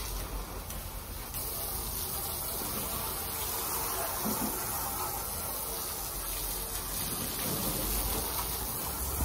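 Pressure washer spraying a water jet onto a glass tabletop: a steady hiss that gets louder about a second in.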